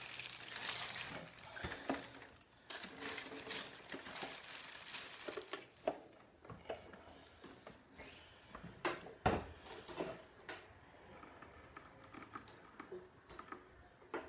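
Plastic and paper packaging crinkling and rustling as a coffee machine is unwrapped, with scattered knocks and one loud thump about nine seconds in.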